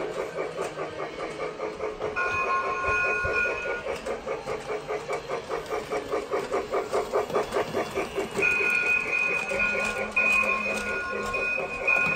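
Toy Polar Express train set running, its sound unit playing a rhythmic steam-engine chuffing. A multi-note train whistle sounds for about a second and a half about two seconds in, then blows again, with short breaks, from about eight seconds in.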